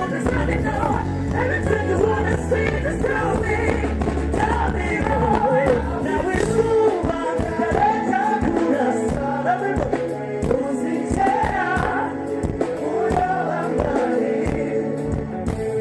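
Live band music with a singer, played over a PA. The bass drops out about five seconds in, leaving the voice over a rhythmic beat.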